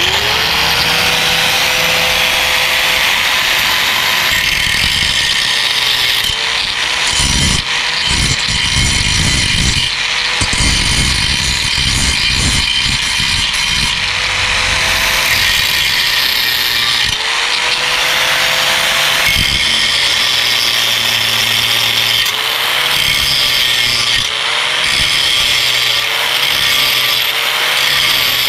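Angle grinder with a grinding wheel spinning up, then grinding the freshly cut end of a motorcycle's metal exhaust pipe to level it. Its whine sags and recovers again and again as the wheel bites, more often near the end.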